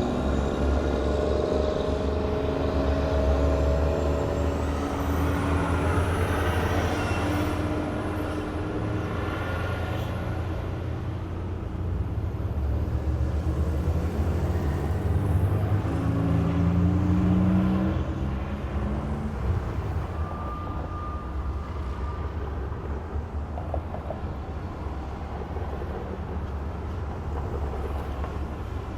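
Road traffic at an intersection: a steady low rumble of car and heavier vehicle engines, with engine notes rising as vehicles pull away. It grows quieter for the last third.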